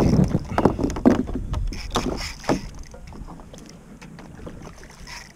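Water splashing and knocks against the side of a kayak as a hooked fish is fought close in: a dense run of irregular knocks and splashes over the first three seconds, fading to a quieter wash of water.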